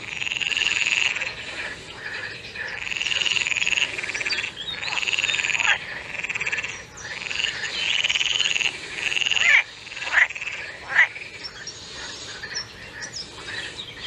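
Frogs croaking: a run of pulsed calls, each about a second long, repeating with short gaps. Several short, sharp falling calls come near the end.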